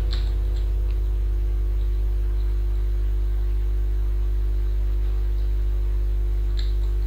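Steady low electrical hum at mains frequency with its overtones, under faint background music, with a few faint clicks near the start and one near the end.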